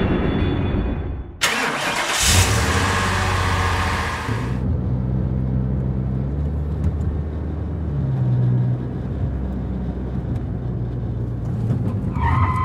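A car engine starts and revs loudly for about three seconds, then settles into a low, uneven rumble that shifts in pitch a few times.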